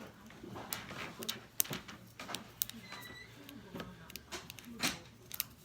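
Wacky Tracks snap-and-click fidget chain being twisted: irregular sharp clicks and snaps as its plastic links lock into place.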